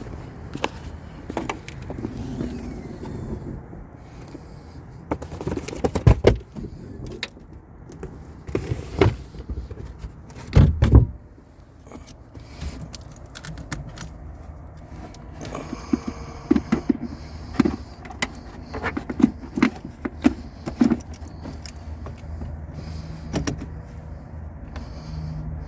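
Handling of tools and car parts: scattered clicks, knocks and rattles, with two louder thumps about six and eleven seconds in and a run of quick clicks later on.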